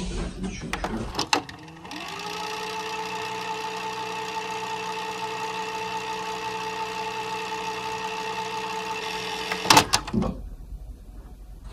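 Videotape fast-forward effect: a VCR's tape motor spins up about two seconds in, whirs at a steady pitch with a hiss, and stops with a few loud clicks near the end. A few clicks come before it starts.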